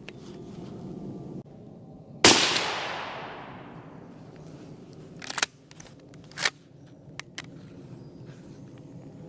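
A single rifle shot about two seconds in, its report rolling away through the woods for over a second. A few sharp metallic clicks follow, the rifle's bolt being worked.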